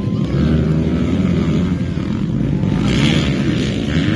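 Motocross dirt bikes' engines running and revving on the track, the engine note rising and falling as the riders work the throttle, with a harsher, brighter rev about three seconds in.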